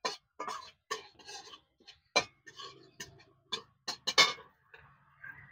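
Metal spatula scraping and knocking against a large aluminium wok while whole spices are tempered in a little oil: a string of short scrapes, about two a second, easing off near the end.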